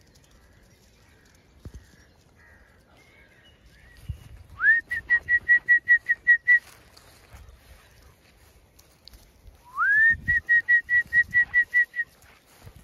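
A shepherd whistling to call in the ewes. There are two calls, each starting with a rising whistle that breaks into a quick run of short pips at one pitch, about five a second.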